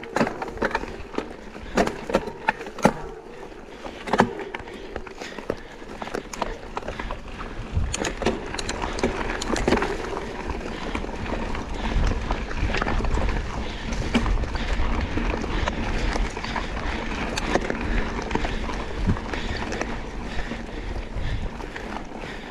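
Scott Spark RC mountain bike ridden on a trail: tyres rolling over dirt and stones, with many sharp knocks and rattles from the bike over bumps in the first half. From about eight seconds in, a steadier low rumble takes over.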